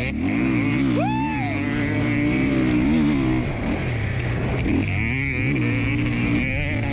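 Husqvarna FE501's big single-cylinder four-stroke engine revving up and down as it is ridden hard on dirt, its pitch climbing and dropping through the throttle and gear changes, with a steady hiss of wind.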